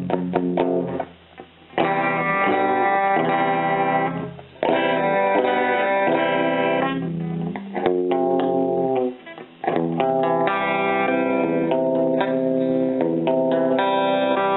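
Electric guitar played through a small Roland Jazz Chorus combo amplifier: ringing chords and notes, with short breaks about a second in, near four seconds and near nine seconds.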